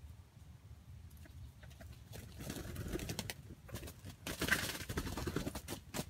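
Red junglefowl rooster clucking, among two spells of rustling noise, the second and louder about four seconds in.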